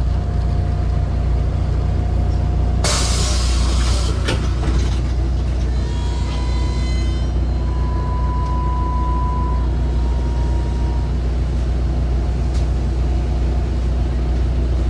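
A MAZ-203 city bus heard from aboard, its engine running with a steady low drone. About three seconds in comes a sharp hiss of released compressed air from the air brakes, lasting about a second. Midway through, a thin whine rises and fades.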